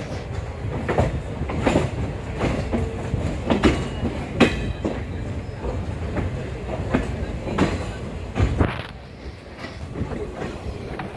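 ICF passenger coach wheels clacking over rail joints, with a steady low running rumble from the bogies. The clacks come irregularly, roughly one or two a second, and the sound grows quieter about nine seconds in.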